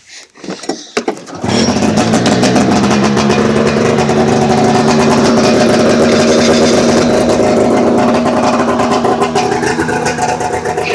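Polaris Indy 340 snowmobile's two-stroke engine starting about a second and a half in after a few faint clicks, then running steadily.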